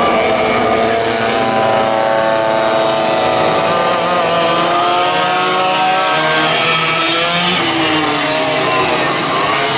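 Several racing go-kart engines running at high revs on track, with more than one heard at once. Their pitches rise and fall as the karts pass and change speed.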